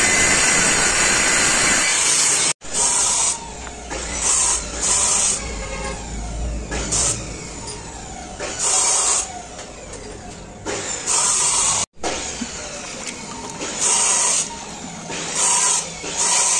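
Handheld electric circular saw cutting a moulded door panel sheet, a loud, even noise that cuts off abruptly after about two and a half seconds. After that comes a quieter stretch broken by short bursts of high noise every second or two.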